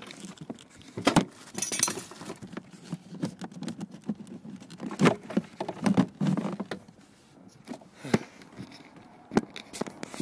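Irregular plastic clicks, knocks and rustling as a cabin pollen filter is pushed and worked into its plastic housing under a Honda Civic Aerodeck's dashboard. The heaviest knocks come around the middle.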